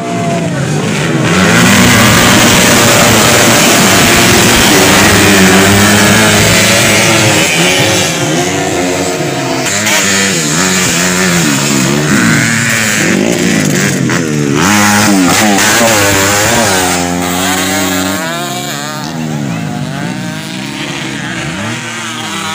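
Several motocross dirt bike engines revving hard, their pitches rising and falling with throttle and gear changes, overlapping one another; a little quieter in the last few seconds.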